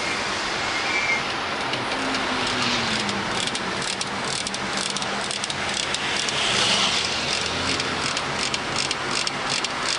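Marussia supercar driving with steady road noise, and a rapid creaking, clicking rattle from the car's body. The rattle sets in about a third of the way through and grows denser toward the end.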